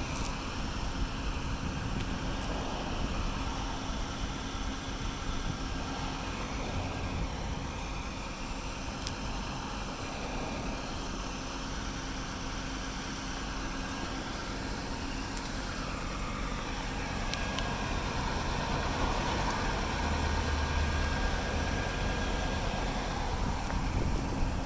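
Audi RS3's turbocharged 2.5-litre five-cylinder engine idling steadily.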